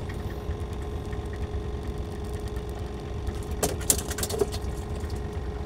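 Small air-cooled petrol engine on a wooden boat, driving a long-tail propeller shaft, running steadily at low speed. A few sharp clicks come just past the middle.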